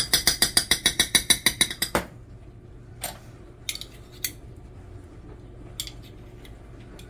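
Metal spoon clinking rapidly against the side of a container while scooping tomato paste, about eight quick clinks a second for two seconds, then a few single light clinks.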